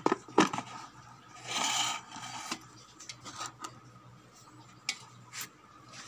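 Stainless-steel electric kettle being set down and handled on its plastic power base: two sharp knocks at the start, a short scraping rush about a second and a half in, then a few light clicks.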